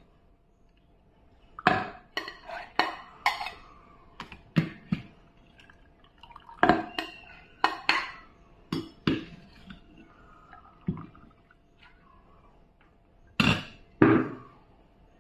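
A perforated steel ladle knocking and scraping against a steel bowl as soaked wheat grains are scooped out, the wet grains rattling and water dripping back through the holes. The clinks come irregularly, about fifteen in all, the loudest two near the end.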